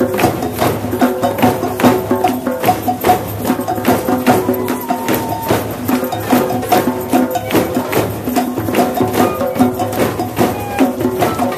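Large drum circle, many people playing Remo Sound Shapes frame drums together in a steady, fast pattern of about three to four hits a second. A held melody sounds over the drumming.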